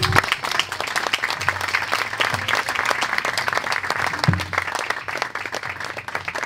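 Audience applauding, many hands clapping together, thinning out and dying away near the end.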